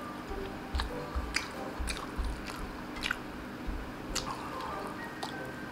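Close-miked chewing of instant pancit canton noodles and egg eaten by hand, with short sharp mouth clicks and smacks about twice a second.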